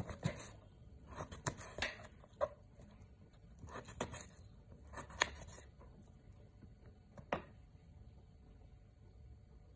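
Kitchen knife cutting raw green mango into cubes on a wooden cutting board: irregular sharp taps of the blade through the fruit onto the board, most of them in the first five seconds, with a last one about seven seconds in.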